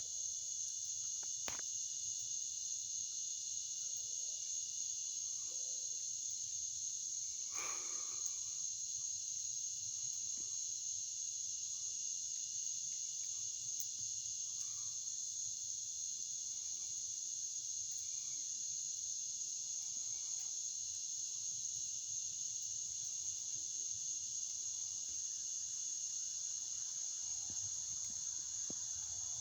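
Dense, steady, high-pitched insect chorus with no pause, with a brief faint rustle about eight seconds in.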